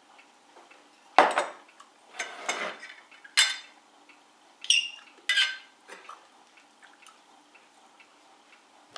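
A metal spoon clinking and scraping against ceramic dishes, a bowl and a plate of rice: about six short, sharp clinks over a few seconds, the loudest about a second in and one ringing briefly.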